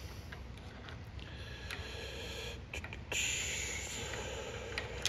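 Light metal clicks and scrapes from a brake-line flaring tool clamped in a vise as it is handled and set up. The loudest sound is a hiss lasting about a second, three seconds in.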